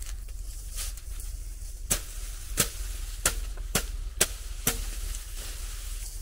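Sickle chopping through thick fodder grass stalks: a run of about seven sharp chops, roughly one every half second to a second, over a low steady rumble.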